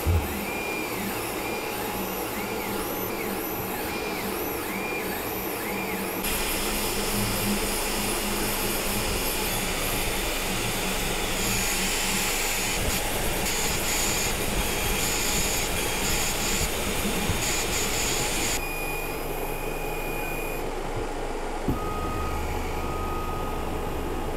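Elegoo OrangeStorm Giga 3D printer printing: its motors whine in repeated rising and falling sweeps as the printhead moves back and forth, over a steady whir. The sound changes abruptly twice, with a louder stretch in the middle where high tones switch on and off.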